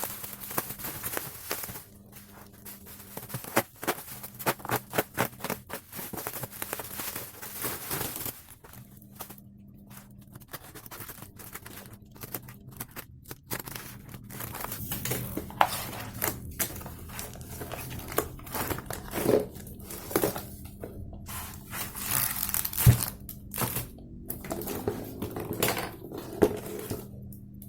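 Packaging being handled and opened: crinkling and tearing, with irregular taps and knocks.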